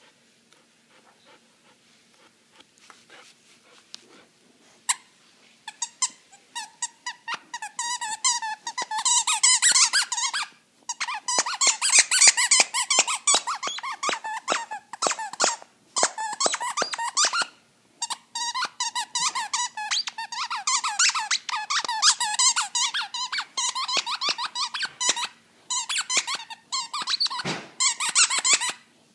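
Squeaky plush skunk toy squeaking rapidly and over and over as an Akita puppy chews it, several squeaks a second with brief pauses. The squeaking starts about five seconds in.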